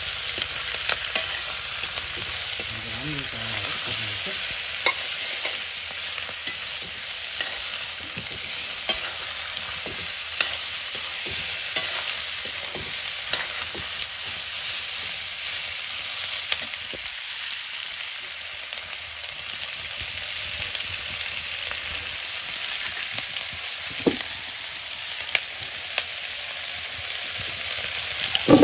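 Chicken pieces sizzling as they fry in oil in a wok, stirred with a metal spatula that scrapes and clicks against the pan at irregular, frequent intervals.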